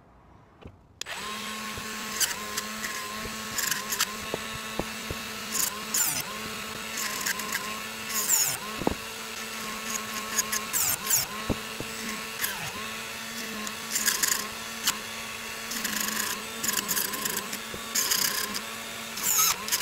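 Cordless rotary tool starting up about a second in and running steadily through a flex-shaft handpiece. Over the motor tone come repeated short bursts of grinding, with brief dips in pitch as the bit bites into the brass extruder drive gear on a stepper motor shaft, cutting the press-fit gear off.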